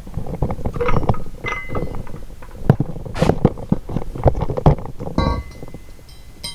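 Metal clanks, knocks and clinks from handling a Ford Model T engine's crankshaft and bearing caps. There are short ringing metallic notes, the clearest about five seconds in and again near the end: the crankshaft rings like a bell when struck, a sign it is sound and uncracked.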